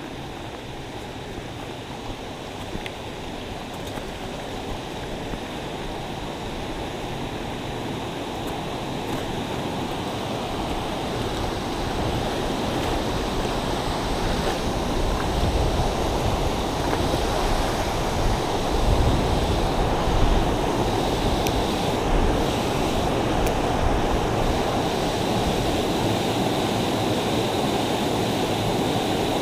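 Rushing water of creek rapids and a small waterfall, a steady roar that grows gradually louder.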